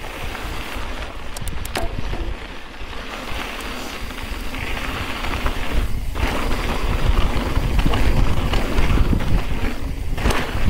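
Wind buffeting the microphone over the crunch and rattle of a mountain bike's knobby Maxxis Minion DHR II tyres rolling fast over loose, kitty-litter gravel on a descent. A few sharp clicks come about a second and a half in, and the low wind rumble grows louder about halfway through.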